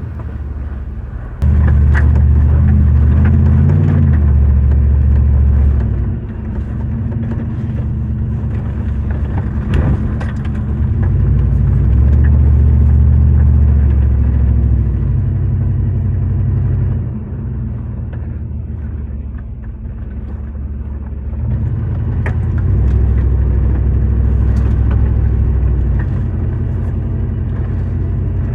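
Vehicle driving along a trail: a low engine and road rumble that swells and eases several times, with scattered knocks and rattles.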